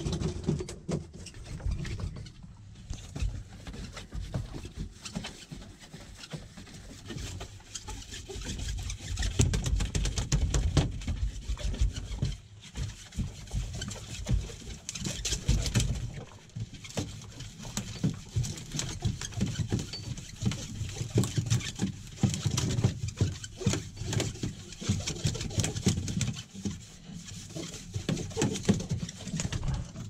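Wind buffeting the microphone on an open boat at sea: an uneven, gusting low rumble with a faint hiss, strongest from about nine to sixteen seconds in and again near the end.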